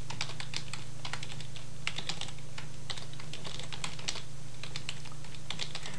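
Computer keyboard typing: quick, irregular keystrokes throughout, over a steady low hum.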